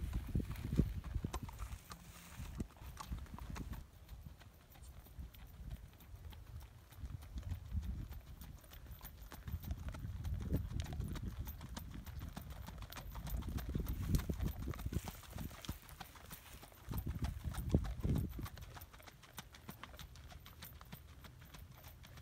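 A horse's hoofbeats on a dirt track as it is ridden along, a steady run of strikes with some low rumble in the background.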